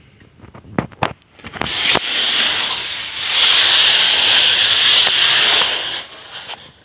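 Aerosol spray can spraying glue in one long, loud hiss of about four seconds, after a few sharp clicks and knocks.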